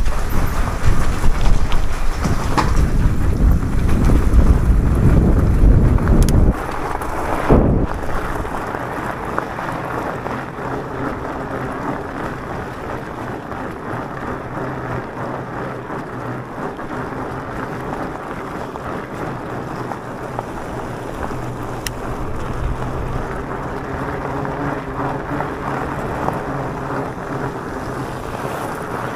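E-mountain-bike ride on a gravel road: heavy wind buffeting on the microphone for about the first six seconds, cutting off suddenly, then a steady hiss of tyres rolling over gravel with a faint steady hum underneath.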